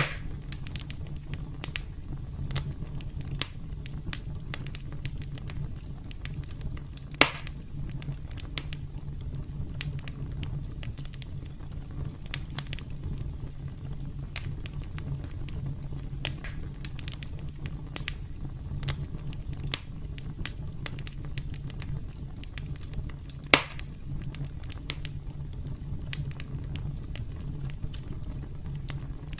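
Wood campfire crackling steadily, with frequent small snaps over a low rumble of the flames. Two much louder pops come about seven seconds in and near the three-quarter mark.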